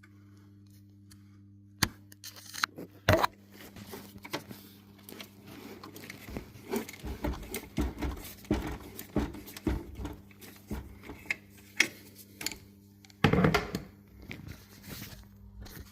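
Irregular clicks, knocks and scraping of parts or tools being handled, over a steady low hum, with a louder knock about thirteen seconds in.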